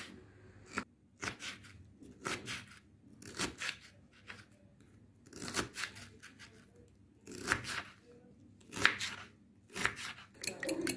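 Kitchen knife dicing a red capia pepper on a wooden cutting board: short runs of quick cuts, the blade knocking on the board, about every second, coming faster near the end.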